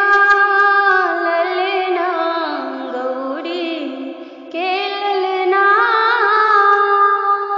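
A woman sings a devotional aarti to Ganesh, drawing out long, ornamented notes. Near the middle the melody sinks lower, and a new phrase begins a little past halfway.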